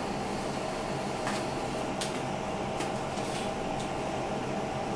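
Steady hum of a fan or appliance motor, with a few faint light clicks about one to four seconds in.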